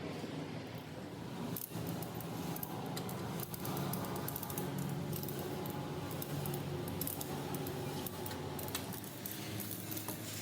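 Light metallic clinks and taps of tools and metal parts being handled, scattered irregularly over a steady low hum.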